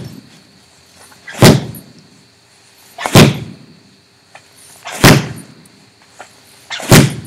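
A paracord-wrapped billiard ball on a long lanyard strikes a hanging heavy bag four times, about every second and a half to two seconds. Each strike is a heavy thud as the ball slams into the bag and bounces back.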